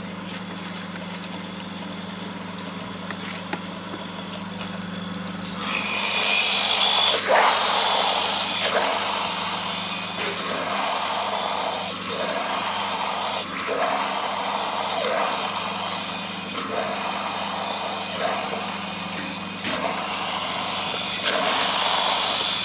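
Stainless-steel colloid mill grinding machine running with a steady hum. About five seconds in, a much louder harsh grinding noise starts as wet grains go through the mill, swelling and dipping about every second and a half.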